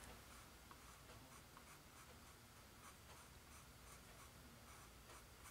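Faint scratching of a small paintbrush stroking paint onto a canvas, in soft, repeated short strokes.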